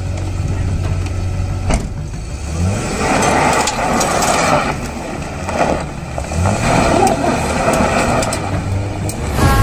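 Pickup truck engine revving up again and again as it spins its wheels on loose dirt and gravel, the tyres scrabbling under the rising engine note. A single sharp knock about two seconds in.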